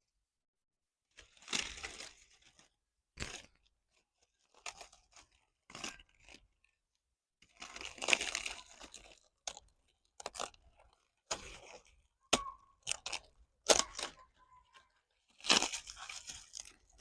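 Irregular bursts of crunching and crackling, about a dozen in all, with the loudest near the middle and at the end, separated by dead silence.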